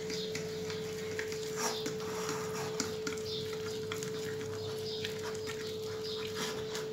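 A metal fork stirring flour and boiling water into a thick dough in a ceramic bowl, with soft scattered clicks and scrapes against the bowl, over a steady hum.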